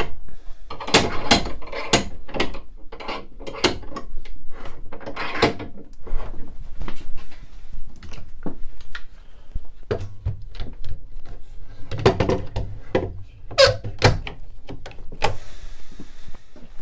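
A run of knocks, clunks and clicks of wood and metal being handled as a wooden benchtop shave horse is clamped to a workbench vise, busiest over the first few seconds, with a couple of louder knocks near the end.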